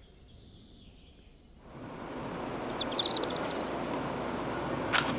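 Outdoor background noise fading in about two seconds in, with a small bird's short high chirping trill about three seconds in and a sharp click near the end.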